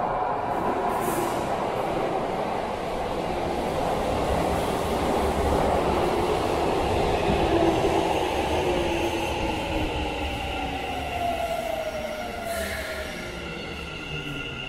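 Keikyu N1000 series electric train pulling into an underground station, a continuous rumble of wheels and motors that peaks as it passes. As it brakes, its motor whine falls steadily in pitch, and a high squeal sets in near the end as it slows.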